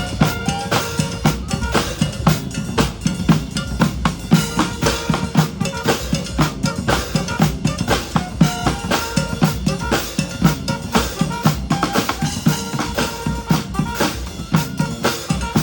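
Live street-band music led by a drum section: snare and bass drums keep up a busy, steady beat, with short held notes from other instruments over the top.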